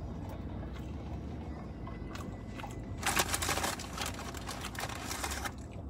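Crinkling and crackling of a paper food wrapper for about two and a half seconds, starting about three seconds in, over a low steady hum inside the car.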